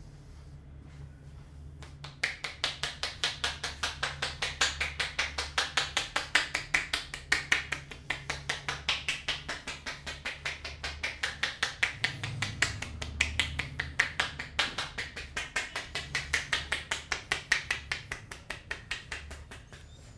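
Hands striking the body in quick percussive massage strokes, an even run of about five slaps a second that starts about two seconds in and eases off near the end. A low steady hum lies underneath.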